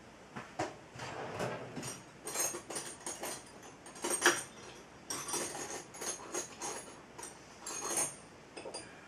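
Metal hand tools clinking and rattling in irregular knocks and clinks, as someone rummages through a set of wrenches or sockets for the right size.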